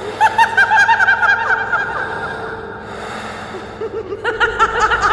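High-pitched cackling laughter in two bouts of quick, rapid-fire pulses: one at the start lasting about two seconds, and another beginning about four seconds in.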